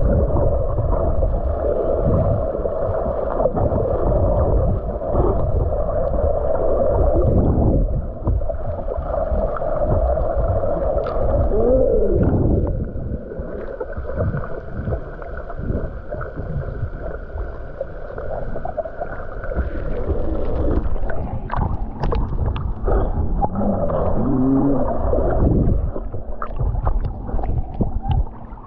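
Muffled, continuous rumbling and gurgling of water against a camera in a waterproof housing, with a few short rising-and-falling gurgles and small clicks in the second half.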